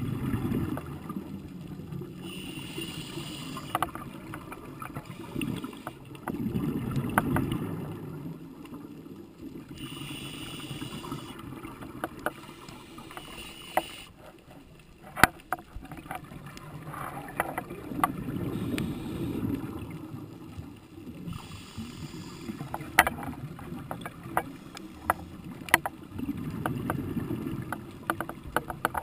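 Scuba diver breathing through a regulator underwater, heard through the camera housing: a hiss on each inhale and a bubbling rumble on each exhale, repeating every few seconds, with scattered sharp clicks.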